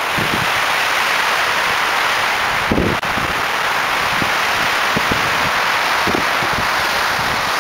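Strong wind rushing steadily through pine trees, with low gusts buffeting the microphone and a brief dropout about three seconds in.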